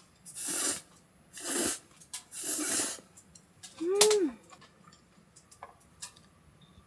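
A person breathing out in three short, breathy puffs while eating, then giving a short 'mm' hum that rises and falls in pitch about four seconds in. A few faint clicks follow.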